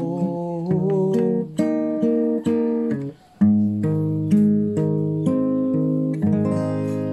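Acoustic guitar playing the closing bars of the song, chords picked note by note, with a brief stop about three seconds in before the picking resumes.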